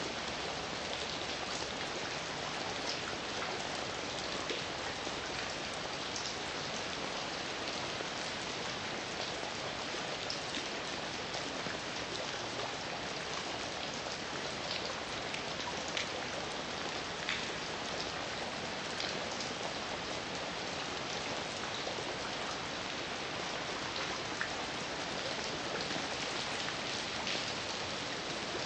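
Steady heavy rain falling, a constant hiss with scattered individual drops ticking on a surface.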